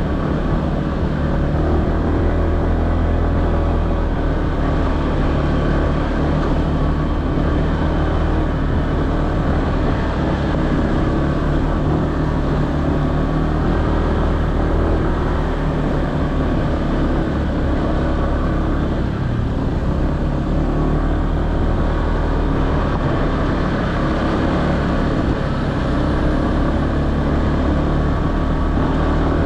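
Honda ADV150 scooter's single-cylinder engine running at a fairly steady pace while being ridden over light offroad ground.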